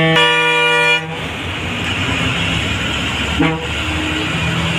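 Bus horn sounding, one loud blast of about a second, then a second, shorter blast about three and a half seconds in, over the steady running noise of the bus engine and road.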